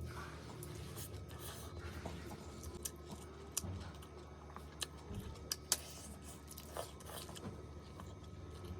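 Close-miked eating sounds: quiet chewing and food handling, with a scattered few sharp clicks and taps, the loudest a little over halfway through.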